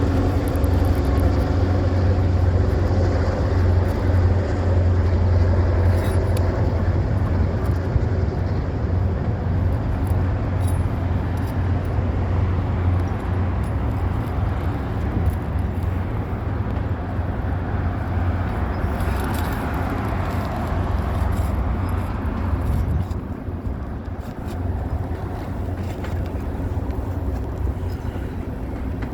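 Passing train: a steady low rumble with a deep engine hum that fades away in the second half.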